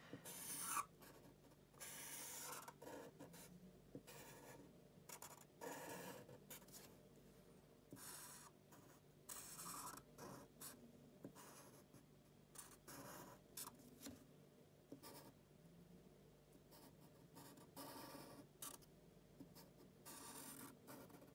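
Brown marker pen drawing on paper: faint, irregular strokes as crosses are drawn and outlined.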